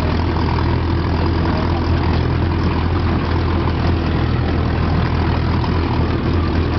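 Off-road 4x4 vehicle engine running steadily while driving, a constant low hum under a continuous noisy rush.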